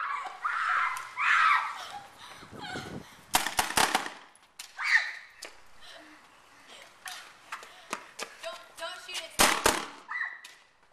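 BB guns firing: quick strings of sharp pops, several a second, about three and a half seconds in and again near nine and a half seconds, with scattered single clicks between. Children's voices are heard in the first couple of seconds.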